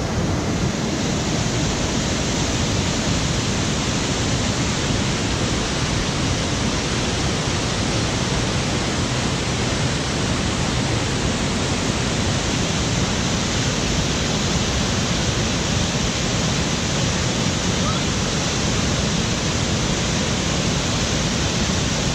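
Steady rush of falling or tumbling water, loud and unchanging throughout.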